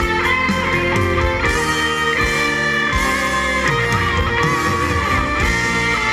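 Live rock band playing an instrumental passage on electric and acoustic guitars with bass guitar, without vocals.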